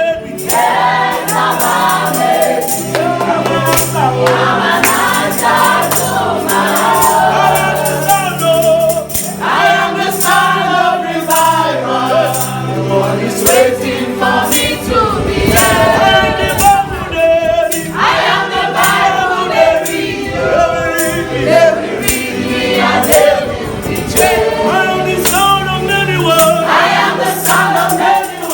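A gospel worship song: a choir sings a chorus over a sustained bass line, with a tambourine beating steadily. The voices drop out for a few seconds about halfway, leaving the band playing.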